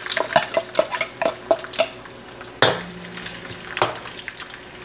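Sliced garlic frying in hot oil in a metal wok while a spatula stirs it, scraping and tapping quickly against the pan over a faint sizzle. Two louder knocks on the wok follow, about two and a half and four seconds in, the first ringing briefly.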